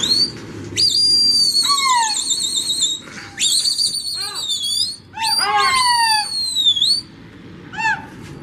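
Loud, shrill whistling by pigeon flyers driving their flock: three long warbling whistles, each ending in a falling glide, then a few short downward whistles near the end.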